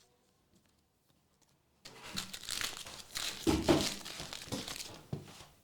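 A trading card pack's wrapper being torn open and crinkled in the hands. It starts about two seconds in, after a quiet spell, and runs for about three and a half seconds.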